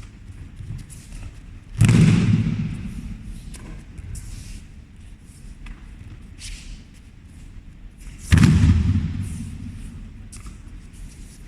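Two heavy thuds about six and a half seconds apart, each dying away over about a second: aikido breakfalls, a thrown partner landing on the mat.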